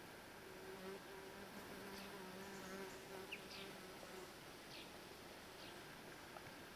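Faint steady buzz of a flying insect, starting about half a second in and stopping near the three-second mark.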